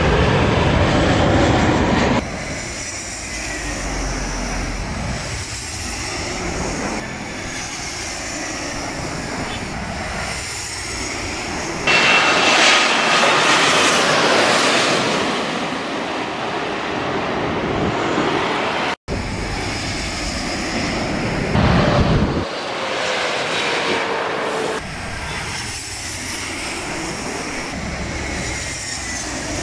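Jet airliners on low final approach passing overhead, their engine noise swelling and fading in several short passes with abrupt cuts between them. During one pass a thin engine whine slides down in pitch.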